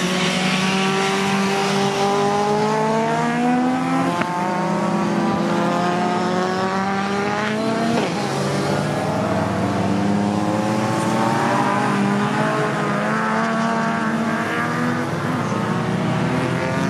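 Touring race car engines at racing speed, their pitch climbing in long rises and dropping back between them as the cars pull up through the gears, with a car passing close near the end.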